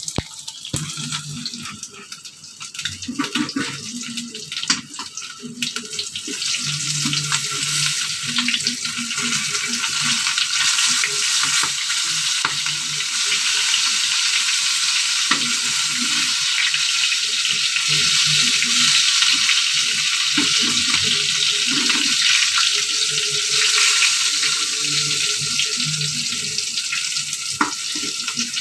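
Fish pieces sizzling as they shallow-fry in a little oil in a pan, the sizzle growing louder after about six seconds and then holding steady.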